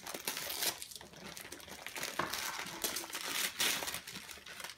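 Christmas wrapping paper being torn and crumpled as a small present is unwrapped by hand, in a run of short crinkling rustles.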